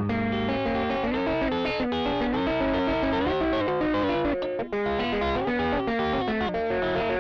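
Electric guitar playing a melodic single-note riff, a looped recording run through a Caline 'British Sound' overdrive pedal, with a mild distorted tone. It briefly drops out for an instant a little past the middle.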